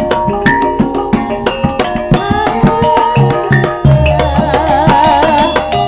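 Live accompaniment music for a Javanese folk dance: hand drums beating a quick, busy rhythm over held pitched notes, with a wavering melody line coming in about two seconds in.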